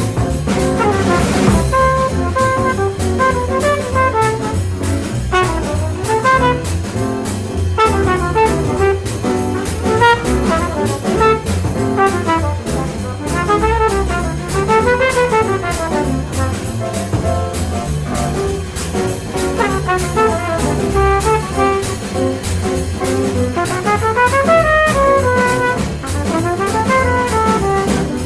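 Jazz trumpet improvising a solo of fast runs that climb and fall, over a small band's rhythm section with cymbal and bass. A cymbal crash comes about a second in.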